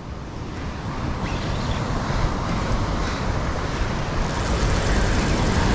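Steady wind rumble on the microphone over breaking surf, growing a little louder and hissier near the end.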